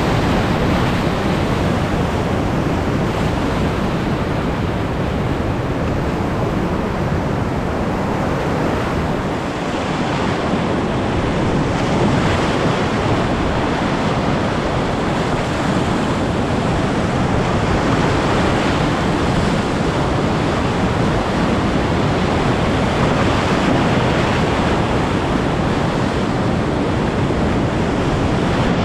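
Whitewater rapids, a steady loud rush of churning river water around a raft running through them.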